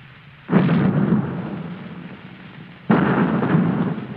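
Two sudden deep crashes about two and a half seconds apart, each dying away over a second or so: the staged bomb blast that ends the drugstore scene, heard through the surface hiss of an old 78 recording.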